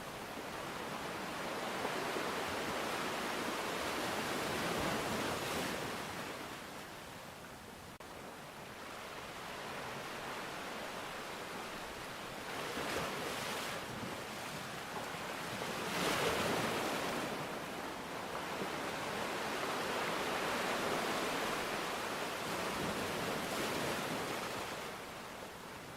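Ocean surf: waves breaking and washing in as a rushing hiss that swells and fades every several seconds, with one sharper surge a little past the middle.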